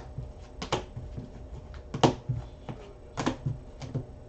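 A few sharp clicks and taps, about four loud ones at uneven spacing with fainter ones between, as of hard objects being handled on a table.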